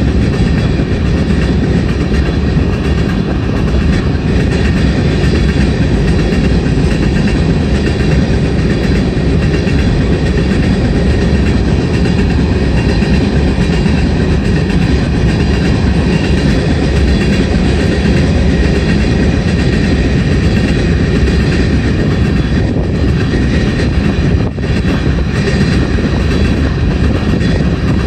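A freight train of new covered hopper cars rolling past close by: a loud, steady rumble of steel wheels on the rails.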